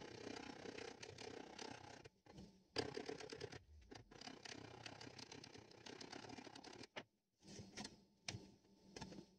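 Brass trumpet tubing being handled and worked on a steel mandrel clamped in a bench vise: continuous scraping and rattling of metal on metal, broken by a short pause about two-thirds of the way through, then a couple of sharp clicks near the end.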